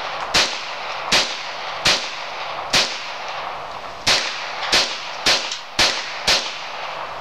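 Smith & Wesson Model 22A-1 .22 LR semi-automatic pistol firing nine single shots, each followed by a short echo. The first four come under a second apart, then after a pause of about a second and a half the last five come quicker, about two a second.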